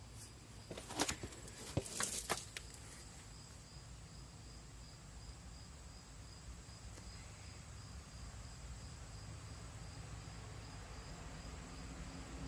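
Crickets chirping in a steady pulsing trill, with a few sharp clicks and knocks about a second to two and a half seconds in.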